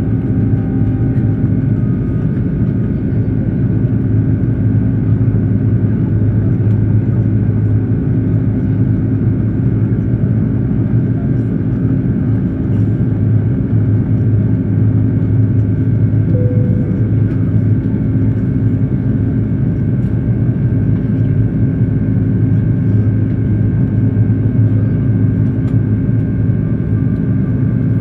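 Airbus A330-200 jet engines and airflow heard inside the passenger cabin as a steady, loud low roar, with a few faint steady tones above it.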